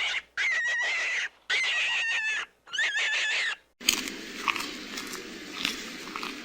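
An animal's high calls, three drawn-out level-pitched cries of about a second each, then an abrupt change to a steady scratchy rustling with small clicks and short squeaks.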